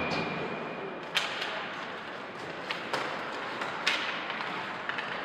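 Scattered sharp clacks of ice hockey sticks and puck, about five over a few seconds, above a steady rink background.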